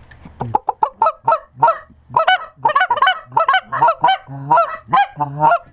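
Canada goose call blown by a hunter, a loud, fast run of short honks and clucks, about four a second, calling to geese flying over the decoys.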